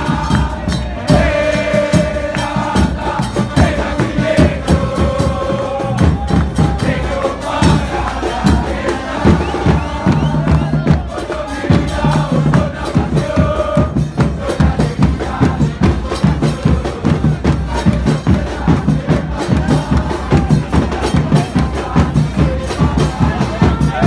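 Football supporters' crowd singing a chant together in the stands, backed by drums beating a fast, steady rhythm. The singing is clearest in the first half, while the drumming carries on throughout.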